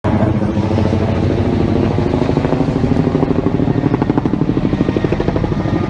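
Helicopter rotor chopping rapidly and evenly, loud and close, with the engine's low drone beneath.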